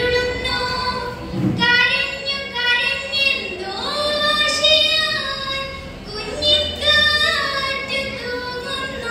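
A girl singing a Malayalam poem solo and unaccompanied, in the melodic kavitha recitation style. She holds long notes and glides between pitches, with a brief breath pause about two-thirds of the way through.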